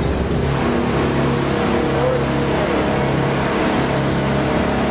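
Sport-fishing boat running at speed: a steady engine drone and the rush of its churning wake, with music playing underneath.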